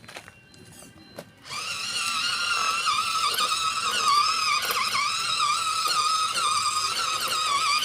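MN99S RC crawler's electric motor and geared drivetrain whining steadily under load, setting in about a second and a half in, with brief small dips in pitch as the load changes.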